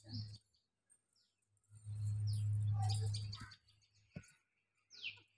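Small birds chirping in short falling calls a few times, with a low steady hum lasting about two seconds in the middle, the loudest sound, and one sharp click near the end.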